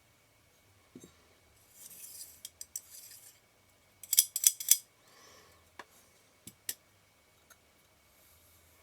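Small metal clicks and taps from lens parts and tools being handled: a few scattered clicks, a soft rub about two seconds in, and a quick cluster of sharp clicks about four seconds in, the loudest.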